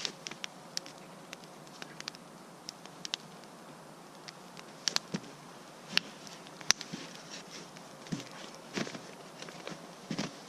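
Wood campfire crackling: irregular sharp pops and snaps, a few louder ones, over a faint steady hiss.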